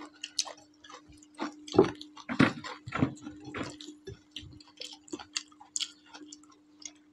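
Two people eating tehari rice by hand: scattered wet smacks, chewing clicks and the squish of fingers working rice on the plates, over a steady low hum.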